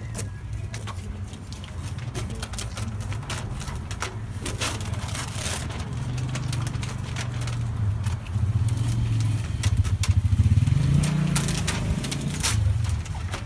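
Low engine rumble of street traffic, swelling to its loudest about ten seconds in as a vehicle passes. Over it come sharp crackles and rustles of paper closure seals being peeled and torn off a door.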